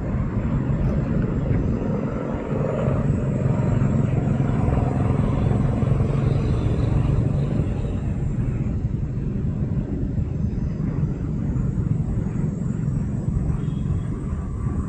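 Steady low rumbling noise that comes in suddenly and eases slightly after about eight seconds.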